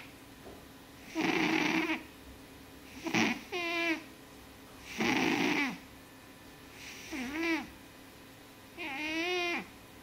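British Shorthair cat snoring in its sleep, one snore with each breath about every one and a half to two seconds. Some snores are breathy; others have a high, squeaky tone that bends in pitch.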